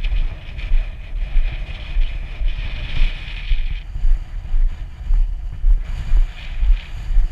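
Wind buffeting the microphone of a body-mounted action camera on a moving person: a heavy, uneven low rumble that keeps swelling and dropping, with a thin high hiss that fades about halfway through.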